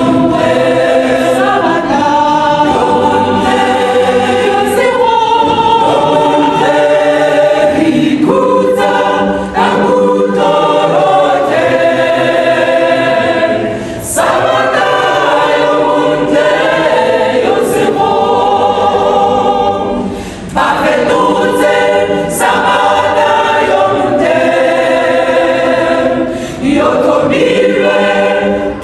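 Mixed church choir singing a cappella in full harmony, holding long notes, with brief breaks between phrases.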